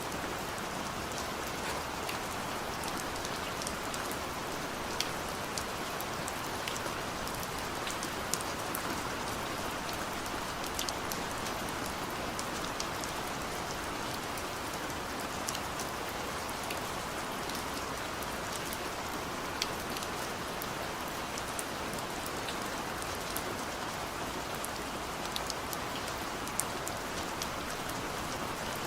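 Steady rain falling, an even hiss with scattered sharp drops ticking close by.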